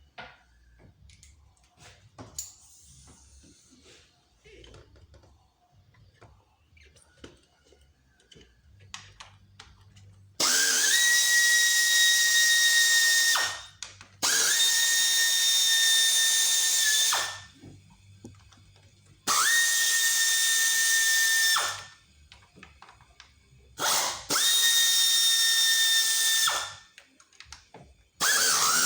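Electric drill-driver running in about five bursts of two to three seconds each, each one winding up quickly to a steady high whine, plausibly spinning out fasteners while the intake manifold is removed. Before the first burst, a third of the way in, there are only light clicks and rattles of tools being handled.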